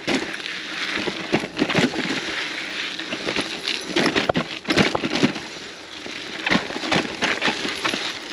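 Gravel bike riding over rocks: tyres crunching, with frequent irregular sharp knocks and rattles from the bike over a steady rush of noise.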